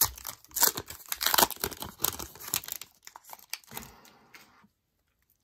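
Foil wrapper of a trading-card pack being torn open and crinkled by hand: a dense crackling tear for about three seconds, then a shorter rustle near four seconds.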